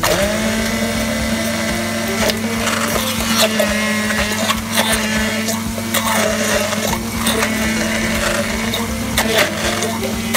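A small electric motor running with a steady hum, coming back up to speed right at the start, with scattered clicks and knocks throughout.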